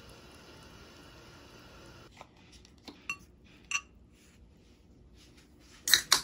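Tableware being handled and set down on a table. A faint steady hiss gives way to a few light clinks and taps, then two sharp, louder knocks close together near the end.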